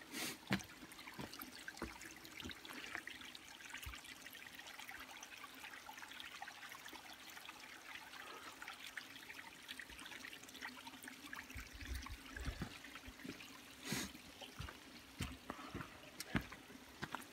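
Small mountain stream trickling faintly at a low late-season flow, with a few scattered clicks and knocks.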